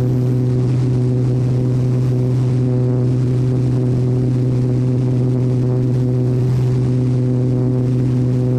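Agricultural crop-spraying aircraft's piston engine and propeller droning steadily in low, level cruise, one constant low pitch with its overtones.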